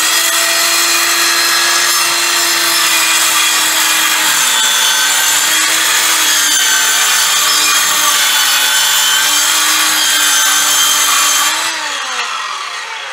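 Electric power saw cutting through plywood. The motor's whine sags in pitch twice as the blade is loaded, then is released about twelve seconds in and spins down with a falling pitch.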